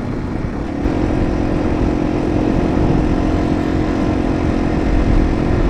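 Yamaha TW200's single-cylinder four-stroke engine running steadily while riding, with wind and road noise low down. The engine note firms up and grows a little louder about a second in.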